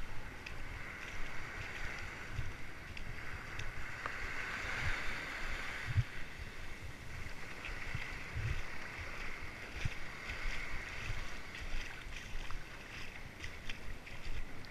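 Small waves washing up on a sandy shore and lapping close by, a steady fizzing hiss. Irregular low thumps of wind buffeting the microphone come every second or two.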